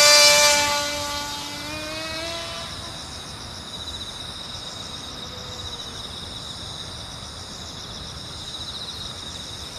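Homemade RC airplane's small electric motor and propeller whining at full throttle just after a hand launch, loud at first and then fading as the plane climbs away, faintly heard again about halfway through. Insects chirr steadily throughout.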